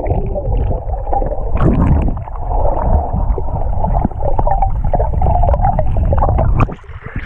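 Muffled underwater rumbling and bubbling with many small crackles, heard through a microphone held below the water's surface. It cuts off suddenly near the end as the microphone comes back up into the air.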